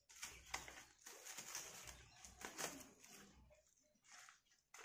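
Faint rustling and crinkling of a paper envelope and plastic wrapping being handled and opened, with a couple of sharp crackles.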